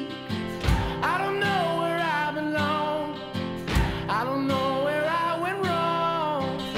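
Country-style song with a singing voice over guitar.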